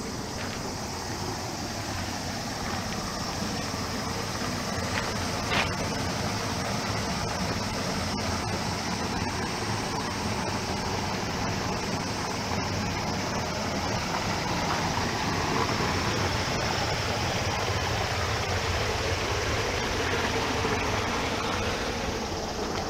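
Steady rushing of running floodwater over a road surface.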